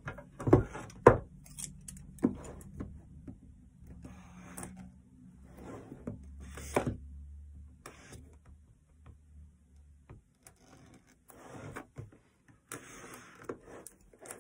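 Scissors and a boxed card deck handled on a wooden table: a few sharp knocks in the first second or so, then scissors snipping and scraping at the plastic wrapping round the box, with rustling of the wrap near the end.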